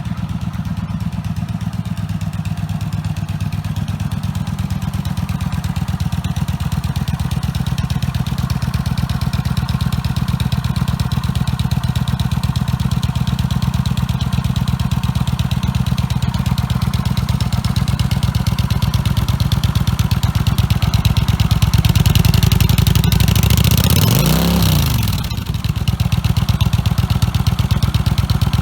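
Kawasaki Vulcan 900's V-twin running through an aftermarket full exhaust system with its dB killers installed: a steady low exhaust rumble that grows gradually louder. About 24 seconds in, the pitch rises and falls quickly, and there is a short drop in loudness just after.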